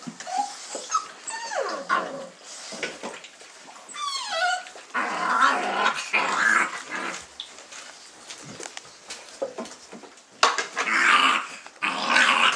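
Young Dogo Argentino puppies whining and yipping in high, falling calls, then growling in rough bursts about five seconds in and again near the end.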